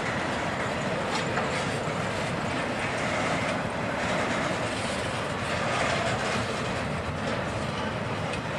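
Intermodal freight train of double-stack container well cars rolling past at a steady pace: a continuous rumble of steel wheels on rail, with scattered clicks.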